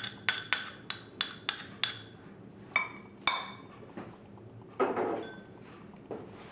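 A metal spoon clinking against a bowl while the dressing is added to sliced apples: a quick run of ringing taps, about four a second, for the first two seconds, then a few slower knocks and a short scraping clatter about five seconds in.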